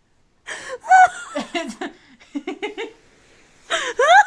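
A person laughing hard: a high-pitched squeal, then a run of short, breathy bursts of laughter, then another rising high-pitched squeal near the end.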